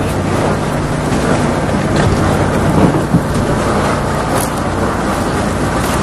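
An engine running steadily with a low hum, with wind buffeting the microphone.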